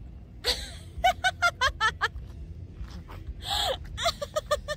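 Laughter in quick, high-pitched runs of short bursts, broken by breathy gasps.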